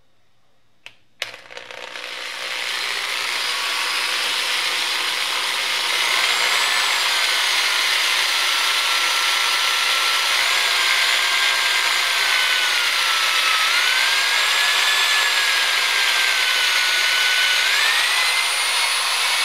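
Power drill with a 3/16-inch bit drilling through a plastic medicine-container cap. After a couple of clicks about a second in, the motor starts and runs steadily, its whine wavering in pitch and rising near the end.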